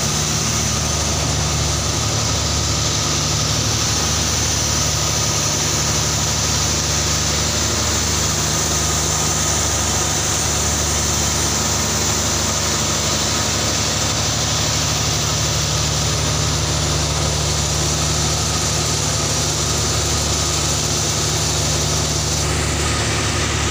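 An engine running steadily: a constant low hum with a thin steady whine above it, no change in speed.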